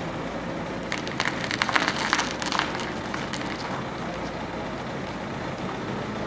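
City street noise with a steady traffic hum, and a run of sharp clattering clicks and knocks from about one to two and a half seconds in.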